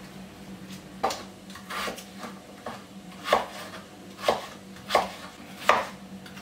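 Kitchen knife chopping peeled raw potatoes into cubes on a wooden cutting board: about seven sharp knocks, roughly one a second, starting about a second in.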